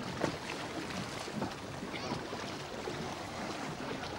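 Steady rushing outdoor noise, most likely wind on the microphone, with faint voices and a few small clicks.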